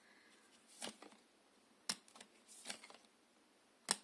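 Tarot cards being handled: four faint, short taps and rustles spaced about a second apart.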